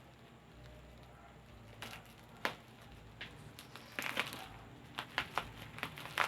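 Packaging being opened by hand: crinkling and crumpling with a series of sharp cracks and rips, starting about two seconds in and densest around the middle and near the end.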